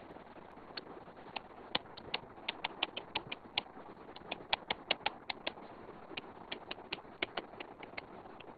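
Stylus tip tapping on a tablet's glass screen during handwriting: a quick, irregular run of sharp ticks, densest in the middle, over a low steady hiss.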